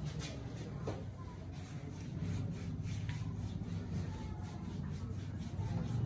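Head massage rubbing: rapid, rhythmic strokes over hair and skin, over a steady low hum.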